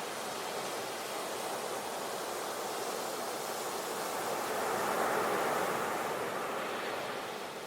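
Ocean waves washing in, a steady rushing hiss that swells to a peak about five seconds in and then draws back.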